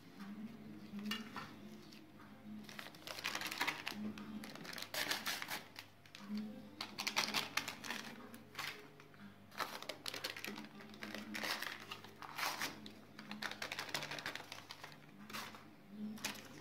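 Hands rubbing and turning a dry, crumbly mix of bran, crushed roasted peanuts, sesame seeds and flour in an earthenware bowl: uneven gritty rustling, several strokes a second.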